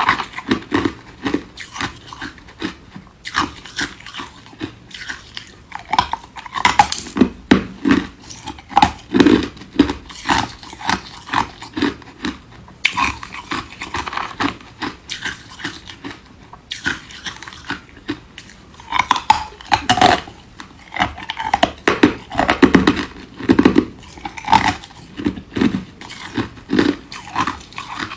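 Ice being crunched and chewed close up: a run of sharp, irregular crunches several a second, with brief pauses between mouthfuls.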